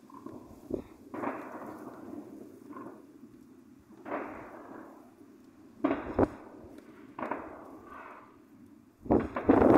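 Fireworks going off: about half a dozen separate bangs, each trailing off in a rolling echo. Near the end comes a fast, loud cluster of crackling reports.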